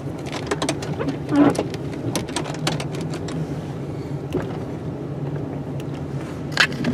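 Plow truck's engine running steadily, heard from inside the cab, with many irregular clicks and knocks over it and two louder ones, about a second and a half in and near the end.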